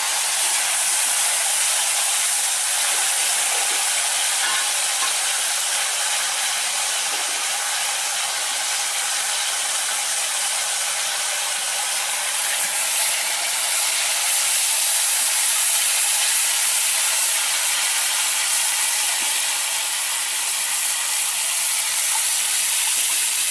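Hot oil sizzling steadily in a kadai as food fries, an even hiss.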